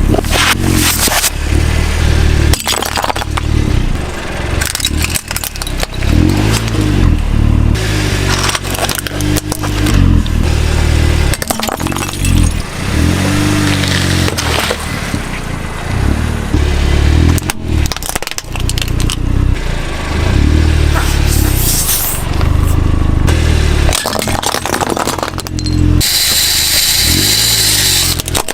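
A vehicle engine revving up and down again and again, with repeated cracking and crunching as objects are crushed under it, and a loud hissing crunch near the end.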